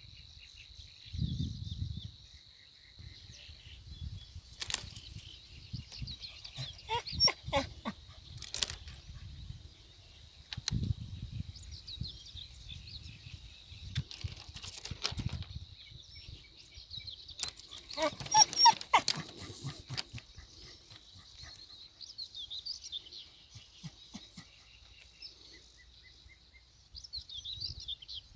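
A dog barking in several short bouts, the loudest two coming about a quarter and two-thirds of the way through.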